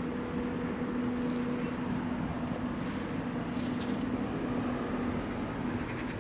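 A steady low drone and rumble of vehicle noise, with a held hum that fades out near the end and a couple of faint clicks.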